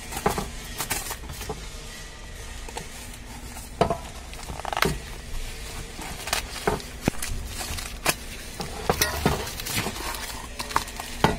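Cardboard packaging and packing tape being ripped and pulled off a new heater core by hand: irregular tearing, crinkling and sharp knocks.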